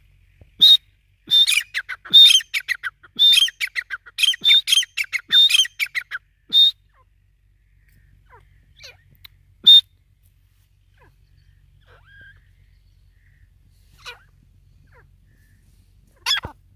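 Grey francolin calling: a fast run of loud, sharp, ringing notes for about six seconds, then a single note in the middle and another just before the end.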